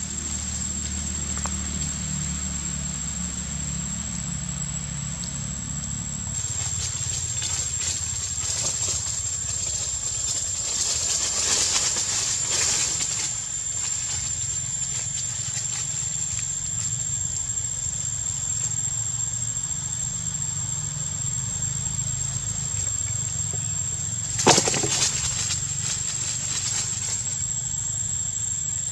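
Outdoor forest ambience: a steady high-pitched whine over a low rumble, with a few rustles around the middle and one sharp snap about 24 seconds in.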